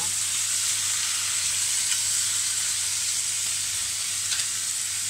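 Chicken pieces sizzling in a double-sided non-stick fry pan: a steady frying hiss over a low steady hum, with a couple of faint clicks as the pieces are moved.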